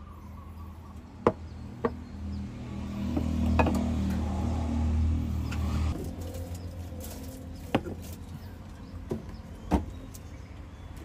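Low rumble of a passing road vehicle, building a couple of seconds in and cutting off suddenly about six seconds in. A few sharp knocks and clicks sound over it.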